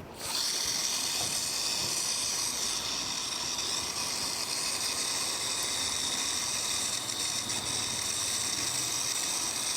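Steady hiss with most of its energy high up, cutting in abruptly at the start and holding even.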